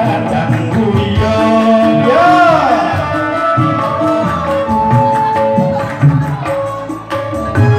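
Music with a drum beat and a person singing into a microphone, with long held notes and a wavering, sliding note about two seconds in.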